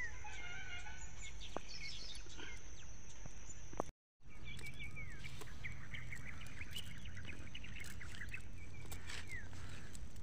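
Small birds chirping and calling in short repeated notes and quick falling whistles, over a steady low rumble and a thin high whine. The sound drops out completely for a moment about four seconds in.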